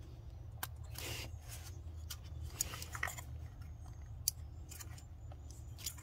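Small sharp plastic clicks and brief rustles of fingers handling a wiring connector, pushing a crimped terminal into a new connector body, over a steady low hum.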